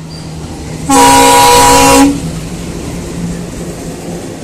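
Diesel locomotive's air horn sounding one loud blast of about a second, several notes at once, over the rumble of a train passing close alongside.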